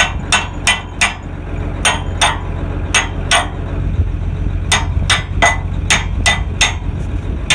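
Hammer knocking on a steel pin in the harrow's cable hitch: about fifteen sharp metal blows, about three a second, in runs broken by pauses of about a second, over a steady low engine hum.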